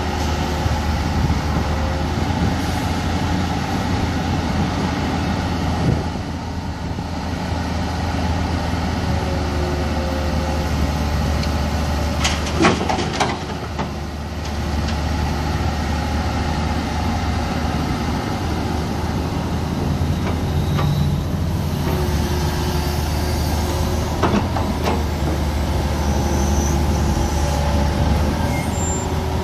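Hitachi ZAXIS 200 hydraulic excavator running steadily as it digs and swings. A few sharp knocks of the bucket and rubble come through, the loudest about twelve seconds in and again near twenty-four seconds.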